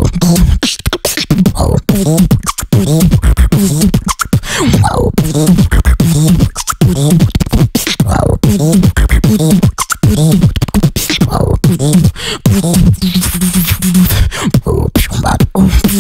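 Human beatboxing: fast mouth-made kick and snare hits and clicks over a low buzzing bass line, with warbling pitched vocal sounds woven through. A falling sweep comes about five seconds in, and a stretch of hissy, breathy noise near the end.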